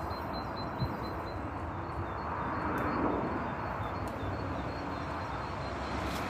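An engine running steadily, an even low rumble with no change in speed.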